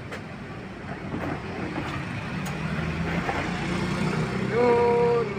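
Motor vehicle engines running and passing in road traffic, with a short, loud pitched tone near the end.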